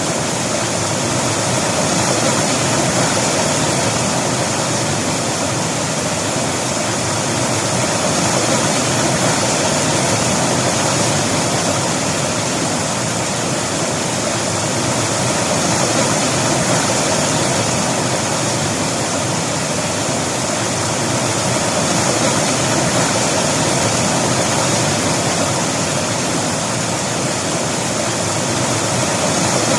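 River water rushing over rocks in a steady, full rush that swells and eases slightly every few seconds.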